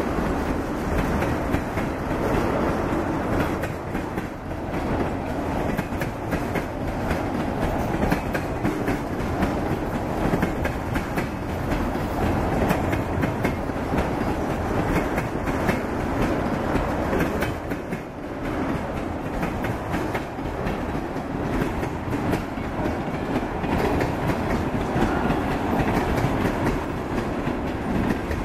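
A freight train of tank cars, led by three EMD diesel locomotives, rolls past close by. It makes a steady rumble with wheels clicking over the rail joints.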